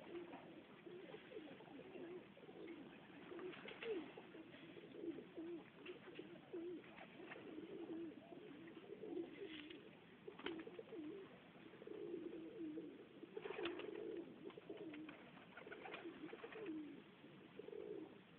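Serbian Highflyer pigeons cooing, several birds overlapping in a continuous low warbling, with a few sharp clicks scattered through.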